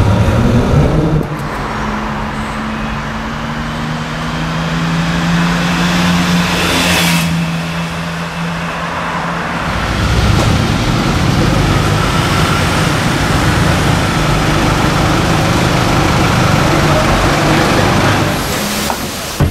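Car engines idling across several short clips: two steady engine tones in the first half, then from about ten seconds in a classic-style Porsche 911's rear flat-six idling with a low rumble.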